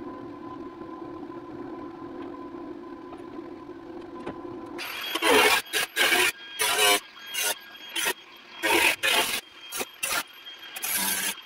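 A steady hum for the first few seconds, then a cordless angle grinder grinding the steel of an International Scout's front end in short, loud bursts, each pass starting and stopping, with a high whine from the spinning disc.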